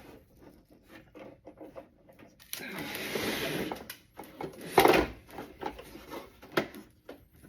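Hands fiddling with small plastic toy parts and action figures: scattered light clicks and rubbing, a stretch of rustling, and a louder knock a little before five seconds in.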